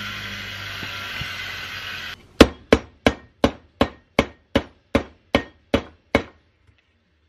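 A hammer striking the inside of a 1950s steel civil defense helmet shell eleven times in a steady rhythm of about three blows a second. Each blow rings briefly, and the first is the loudest. Before the blows begin, about two seconds of steady machine hum, from a bench grinder running.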